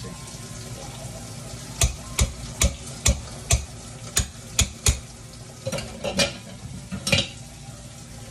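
A kitchen utensil knocking against a bowl while potatoes are mashed: about a dozen sharp knocks, two or three a second, starting about two seconds in.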